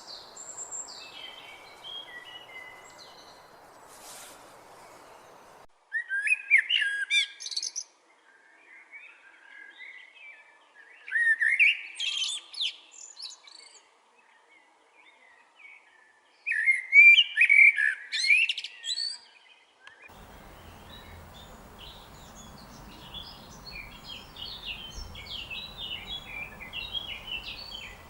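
Songbirds chirping and singing, with three loud song phrases of two to three seconds each in the middle, separated by quieter chirps. The background hiss drops away abruptly about six seconds in and returns with a low hum near the end, where many small chirps continue; these are separate recordings edited together.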